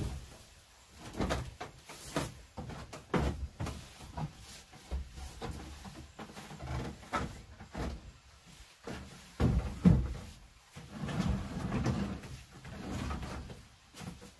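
Wood handled on a plank floor: sheets of dry bark scraped and dropped, then a wooden bee box carried and set down, giving a string of knocks, scrapes and thumps. The loudest thump comes about ten seconds in.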